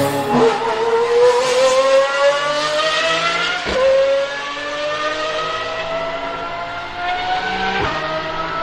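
Pagani Huayra R's high-revving naturally aspirated V12 accelerating hard, its note climbing steadily in pitch, with quick upshifts at about 4 and 8 seconds.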